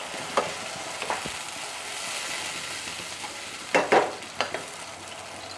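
Watery onion-garlic sauce sizzling in a hot non-stick wok while a wooden spatula stirs it. The spatula knocks and scrapes against the pan a few times, most busily about four seconds in.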